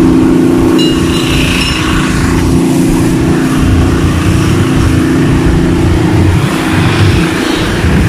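An engine running steadily, with an unsteady low rumble beneath it.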